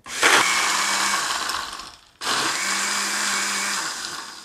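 Countertop blender run in two bursts of about two seconds each with a short break between, its motor and blades churning ice with coffee and rompope into an iced drink.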